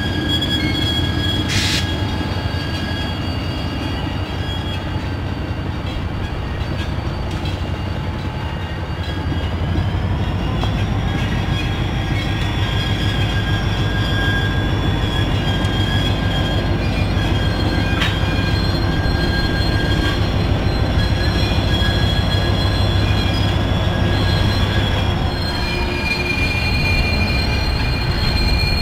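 Diesel locomotives rolling slowly past, their engines running with a steady low drone. Wheels squeal on the rails in thin, high whines that rise in pitch about ten seconds in and drop back a few seconds before the end.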